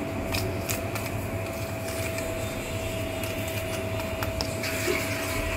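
A steady machine hum with a thin, steady whine runs throughout. A few faint light ticks come from a steel spoon spreading ghee on a roti on a steel plate.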